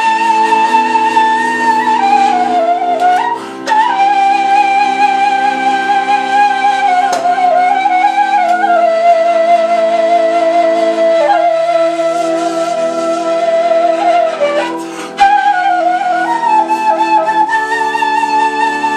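Bulgarian kaval, an end-blown wooden flute, playing a slow free-rhythm bavna melody with wavering, ornamented notes over held lower notes that shift every few seconds. The melody breaks off briefly twice, about three and a half seconds in and again about fifteen seconds in.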